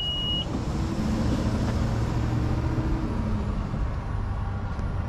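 A car engine running with a low steady rumble, its faint hum fading out about three seconds in. A high steady beep stops just after the start.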